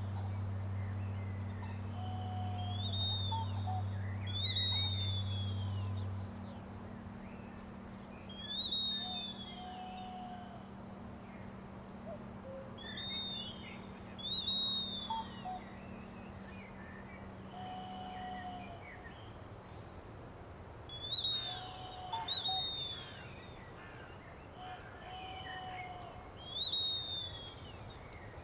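Hand-turned wooden bird whistles playing bird-like calls: pairs of high, arching whistled notes every few seconds, answered by shorter, lower whistles. They sound over a steady low drone that drops away about six seconds in, with a higher drone tone stopping about eighteen seconds in.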